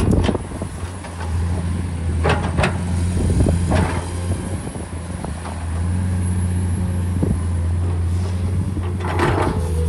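Komatsu PC210 hydraulic excavator's six-cylinder diesel engine running steadily under working load, with scattered knocks and scrapes of the bucket working through loose soil, a burst of them near the end.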